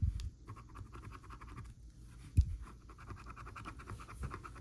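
A metal-edged scratcher tool scraping the coating off a scratch-off lottery ticket in rapid back-and-forth strokes. There is a single dull thump about halfway through.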